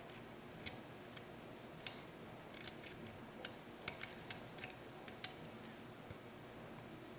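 Scattered light clicks and taps of small metal tool parts being handled, as a hole punch die is readied for a hand press stud setter, with a faint steady high whine underneath.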